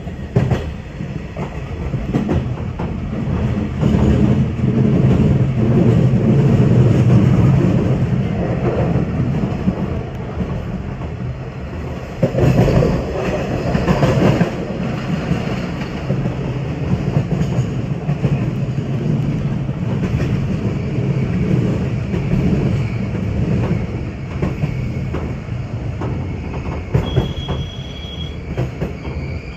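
117-series electric train heard from inside the driver's cab as it runs through station trackwork: a steady low rumble with the wheels clicking over rail joints and points. The rumble is loudest for a few seconds about halfway through, and a brief high-pitched tone sounds near the end.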